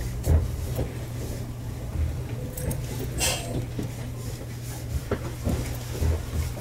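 Meitetsu electric train standing at the platform, its equipment giving a steady low hum, with scattered light knocks and a brief hiss about three seconds in.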